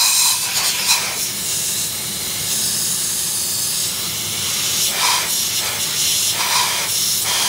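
Compressed air hissing steadily from a siphon-fed mist coolant nozzle on a milling machine, spraying coolant, with a few short changes in the hiss near the end as the nozzle is moved.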